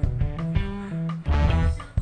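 Background music led by plucked guitar over a bass line.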